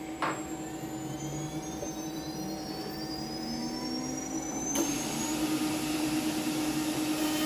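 CNC router spindle spinning up, with a whine that rises in pitch and then holds steady. About five seconds in there is a click, and the hiss of the compressed-air blast and spindle air comes on and keeps going.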